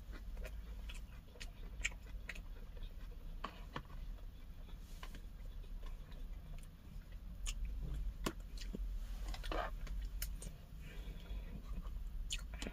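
A person eating cabbage-leaf wraps of pork bulgogi: quiet chewing with scattered short clicks and crunches, over a low steady hum.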